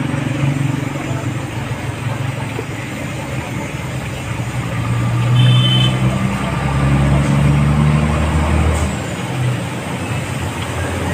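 Low rumble of a motor vehicle engine running nearby, its pitch rising and falling, with a short high tone about five and a half seconds in.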